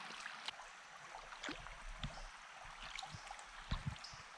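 Small creek running, a faint, steady rush of flowing water, with a few light clicks and knocks scattered over it, the loudest nearly four seconds in.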